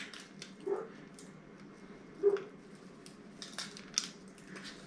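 Quiet food-prep handling: a few brief soft taps and rustles from a garlic salt shaker bottle and the aluminium foil wrapped around a trout as seasoning is sprinkled into the fish. The loudest tap comes a little over two seconds in.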